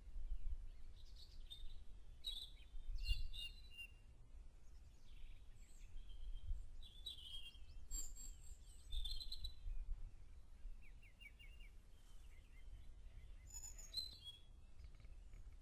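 Several songbirds singing in a spring morning chorus: short chirps, whistles and quick trills from different birds, some overlapping, over a faint low rumble.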